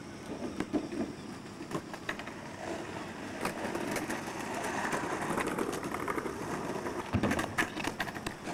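Skateboard wheels rolling over concrete paving, swelling and fading, then the board clattering hard on the ground several times near the end, leaving it lying upside down.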